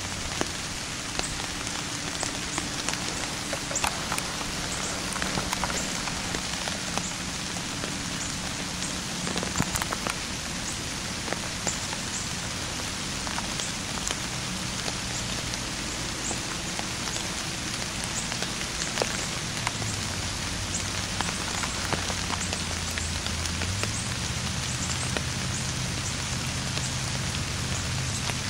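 Rain falling steadily, a constant hiss with frequent sharp ticks of single drops striking close by.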